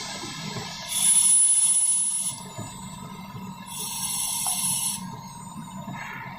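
Home-built CNC lathe machining brass: a steady low hum under two bursts of high-pitched hissing whine, the first about a second in and the second around four seconds in, each lasting a second or so.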